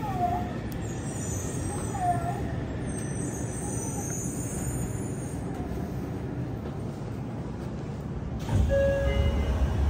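Running noise heard inside a Yokohama Municipal Subway Blue Line 3000R subway car: a steady rumble of wheels and running gear. A heavier low rumble comes in about eight and a half seconds in.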